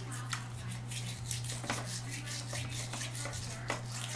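Toothbrush scrubbing a small Italian Greyhound's teeth: a quick, irregular run of scratchy strokes and clicks.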